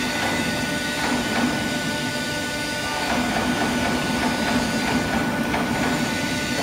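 W28K-89 pipe bending machine and its hydraulic power unit running through a bend with an open die: a steady mechanical hum with a thin high whine, and a few knocks about a second in as the bending head and clamp move.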